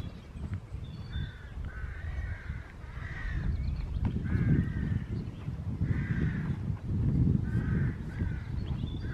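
Crows cawing repeatedly, short harsh calls in clusters of two or three, over a low rumble of wind on the microphone.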